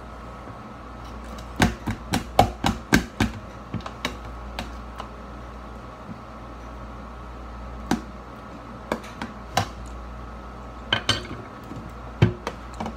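Cutlery knocking and clinking against a glass bowl while mashing and chopping avocado. There is a quick run of sharp knocks a couple of seconds in, scattered single knocks after that, and another short cluster near the end.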